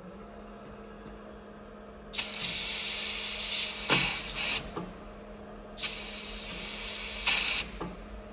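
Stähli FLM-500 surface lapping machine running with a steady hum. Twice, a click is followed by about a second and a half of hissing compressed air that ends in a louder blast, from the machine's pneumatic pressure cylinders.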